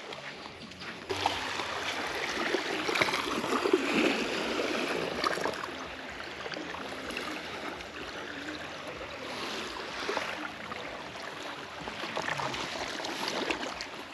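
Water washing and lapping against the shore, an uneven rushing that surges and eases.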